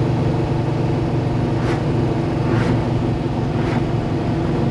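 Ford F100's 429-cubic-inch small-block Ford V8, fitted with Boss 429-style hemi heads, running at a steady cruise, heard from inside the cab while driving. Three faint clicks come about a second apart over it.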